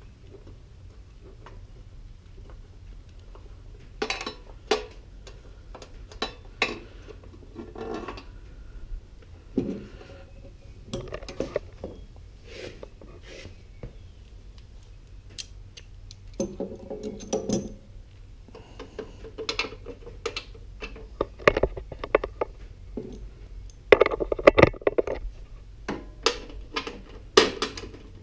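Intermittent metallic clinks, clanks and rattles of hand tools and bolts being worked while a riding mower's cover is unbolted. The busiest, loudest clatter comes a little before the end.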